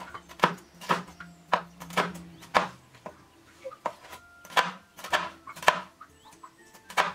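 Kitchen knife slicing a green bell pepper into strips on a cutting board: a series of sharp knife taps against the board, about one every half second, with a short pause around three seconds in.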